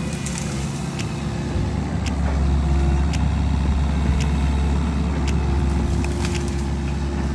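Tractor engine running steadily under work, getting louder about two seconds in, with scattered sharp clicks and snaps over it.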